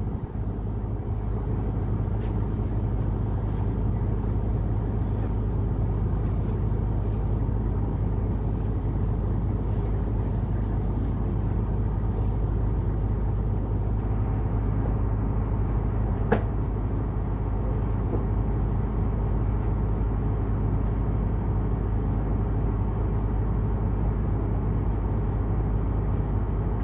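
Excursion boat's engine running steadily, a low even drone heard on board. A single sharp click about sixteen seconds in.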